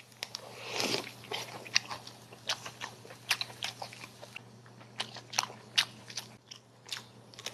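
Close-up chewing and biting of a lettuce-leaf wrap of grilled pork sausage (nem nướng): many short, crisp crunches and wet mouth clicks at an uneven pace, over a faint low hum.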